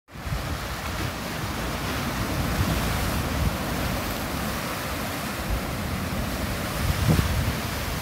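Ocean waves crashing and surging against jagged lava rock in a narrow inlet, a continuous rush of surf with a louder crash about seven seconds in.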